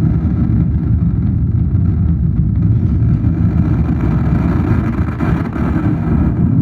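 Foley rocket-engine sound performed live into a microphone: a loud, steady low rumble that grows somewhat brighter midway.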